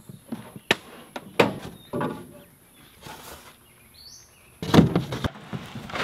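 Cardboard and packing of a sawmill shipping crate being handled: scattered knocks and rustles, then a louder scraping rush about five seconds in as a cardboard side panel comes down, ending in a sharp knock.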